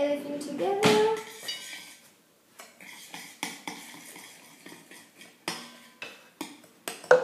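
A utensil stirring ingredients for biscuit dough in a mixing bowl, with irregular clinks and taps against the bowl and one sharp, ringing knock near the end. A short voiced hum comes in the first second.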